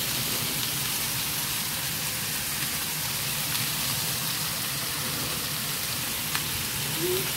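Beef steaks sizzling steadily in butter and oil in two skillets over gas flames turned up high for the final sear.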